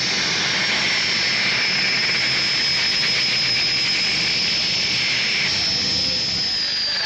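Gas-turbine pulling tractor running stationary with a steady high whine over a rushing exhaust. A lower whine drops out about five seconds in, and the main whine starts to fall in pitch near the end.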